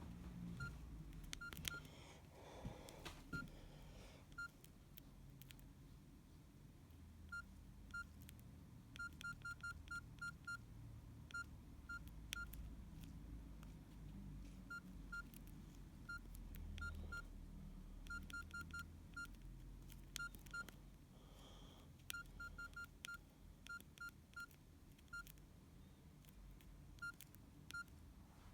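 Nokia 6120 classic keypad tones: many short, faint, identical beeps as keys are pressed, some single and some in quick runs of four or five, with soft clicks between them.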